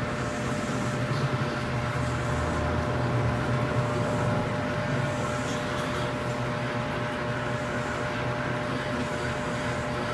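Steady mechanical background hum with a thin, constant high whine and no sudden sounds.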